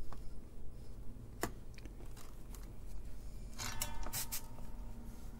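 Small handling noises of a circuit board being turned over in the fingers and set down on a wooden bench: a sharp click about a second and a half in, a few light ticks, then a short cluster of clicks and scrapes around four seconds in, over a steady low hum.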